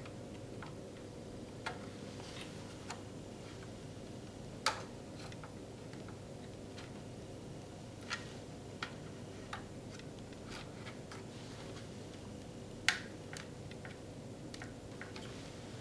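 Small scattered clicks and taps of memory sticks being handled and pushed into their slots, with two sharper snaps, about five seconds in and about thirteen seconds in, as the slot latches catch.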